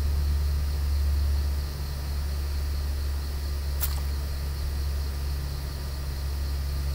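A steady low drone, with a short sharp high click about four seconds in.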